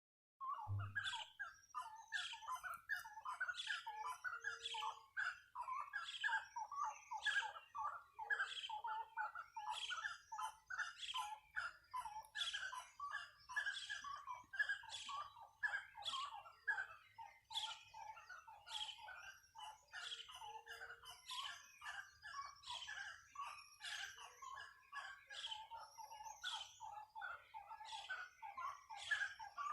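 Chorus of forest birds calling without pause, many short chirps and notes overlapping, a couple or more every second.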